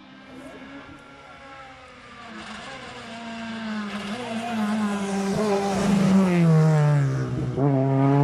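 Rally car approaching flat out, its engine growing steadily louder, the note climbing and dipping with each gear change. Near the end the pitch drops sharply as the driver lifts off, then rises again.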